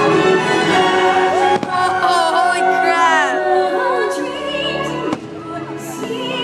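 Fireworks-show soundtrack music over loudspeakers, orchestra with choir singing and some sliding vocal notes, with sharp firework bangs about one and a half seconds in and again about five seconds in.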